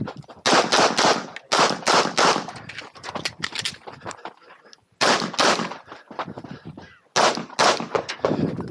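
9mm Glock 26X pistol fired in quick pairs and short strings of shots, with brief pauses between strings.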